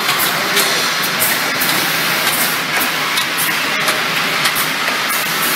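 Automatic bottle filling and capping line running with a steady mechanical noise. Glass bottles queued on the conveyor give irregular light clinks as they bump against each other.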